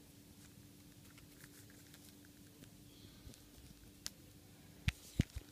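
Faint handling of small plastic bags of charger connectors and clips being opened: scattered small ticks over a low steady hum, then a few sharp clicks in the last second and a half.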